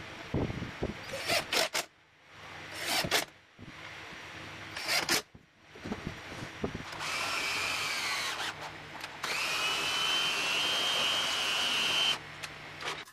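Cordless drill driving screws into plywood in several short bursts. Then a drill motor runs steadily twice, the second time spinning up with a rising whine that holds for about three seconds before cutting off.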